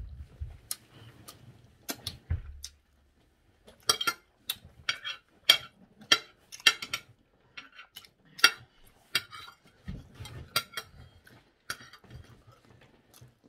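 Metal fork clinking and scraping against a ceramic plate: a string of sharp, irregular clicks that come thick and fast from about four seconds in.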